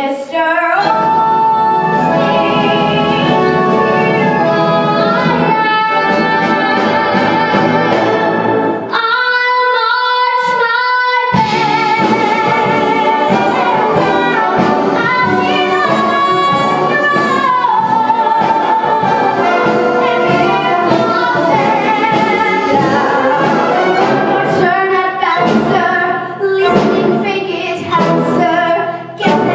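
An eleven-year-old girl singing a show tune through a microphone, backed by a full brass band. About nine seconds in, the band's low parts drop out for a couple of seconds under a few held notes, then the full band comes back in.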